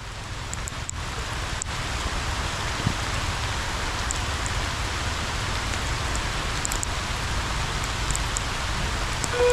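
Heavy rain falling steadily on the road and crossing, a constant hiss. Right at the end a railway level-crossing warning alarm starts up with a steady electronic tone as the crossing begins to close.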